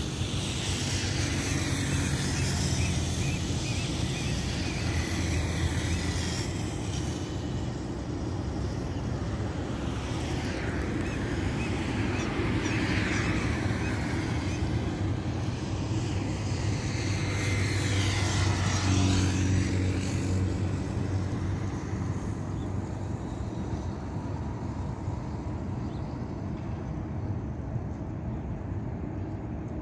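Road traffic: cars passing one after another over a steady traffic hum, each swelling and fading away, the loudest pass about two-thirds of the way through.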